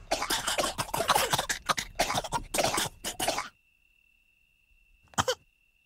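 Several cartoon meerkats coughing and spluttering in a cloud of dust for about three and a half seconds. Then the coughing stops, leaving a faint high steady tone, with one more short cough-like sound about five seconds in.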